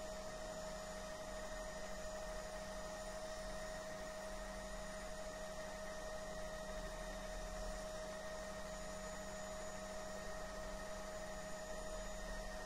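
Steady electrical hum with a few constant tones, heard on a Bell 505 helicopter's headset intercom line while no one is talking.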